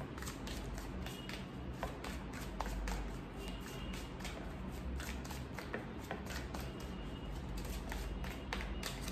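Tarot deck being shuffled by hand overhand: a long run of soft, irregular card flicks and slaps over a faint low hum.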